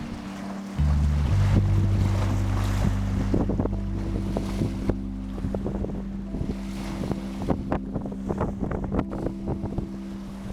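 Sea waves washing in, with wind buffeting the microphone and a crackle of small splashes, over a steady low hum that gets louder about a second in.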